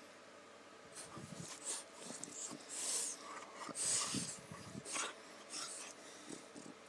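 French bulldog snorting and breathing noisily close up, with a few breathy huffs about a second apart around the middle.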